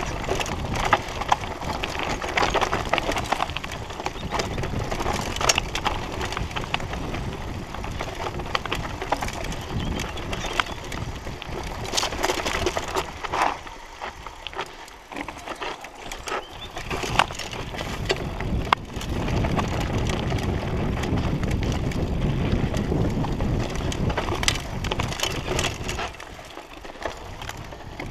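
Mountain bike riding down a rough dirt singletrack: tyres crunching over dirt and loose stones, with sharp clicks and clatters from the bike jolting over bumps. It eases off briefly about halfway through and again near the end.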